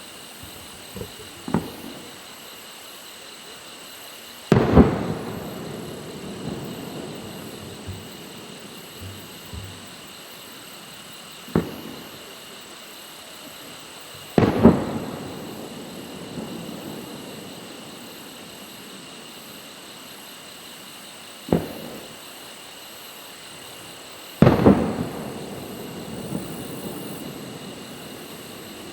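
Fireworks shells launching and bursting, three times. Each cycle is a short sharp launch bang followed about three seconds later by a loud boom that rumbles and echoes away over several seconds.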